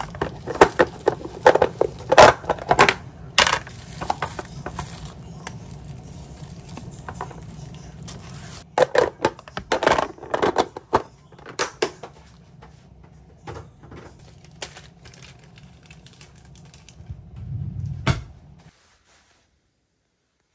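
Plastic lunch containers, lids and a cutlery tray being handled and fitted together: a run of sharp clicks and knocks in two bunches, over a low steady hum, cutting off suddenly near the end.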